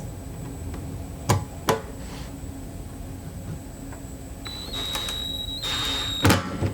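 A small cordless drill-driver whirs in two short bursts of a steady high whine, driving small screws into a fibreglass boat console, with a couple of sharp clicks before and loud knocks right after the second burst.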